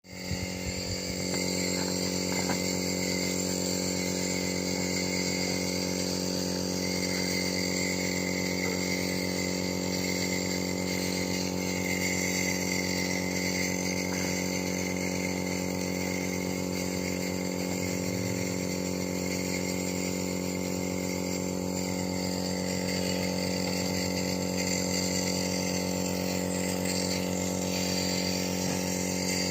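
Compressor nebulizer running with a steady, even electric buzz.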